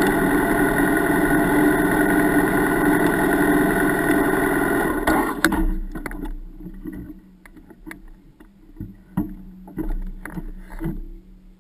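BMW F 800 GS parallel-twin engine idling steadily, then switched off about five seconds in. After that comes a faint steady hum and a few scattered clicks and knocks.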